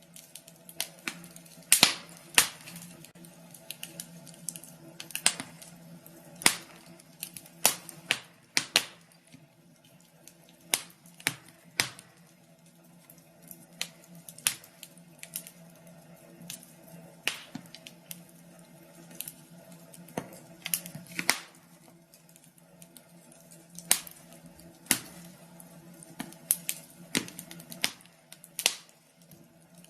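Wood fire in a fireplace crackling, with irregular sharp pops and snaps, several loud ones standing out, over a faint steady low hum.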